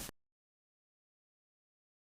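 Dead digital silence, after the last trailing edge of a mixed animal roar used as a dragon sound effect cuts off right at the start.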